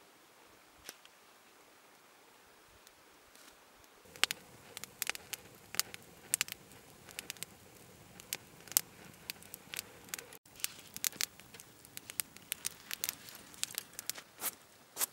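Wood campfire crackling with many sharp, irregular snaps and pops, starting about four seconds in; before that it is nearly quiet apart from one faint click.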